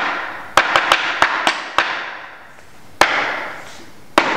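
Hammer blows on a wooden chair frame: a quick run of about six strikes in the first two seconds, then two single blows, each ringing on briefly in the room.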